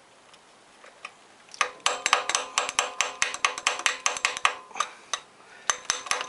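Rapid light metal-on-metal taps, about six a second with a ring to them, starting about a second and a half in with a brief pause near the end: a small hammer driving a punch against a broken bracket bolt to turn it out.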